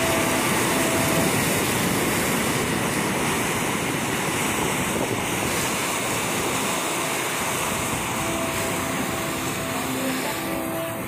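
Ocean surf washing up the sand and around shoreline rocks close by: a steady rushing of breaking whitewater.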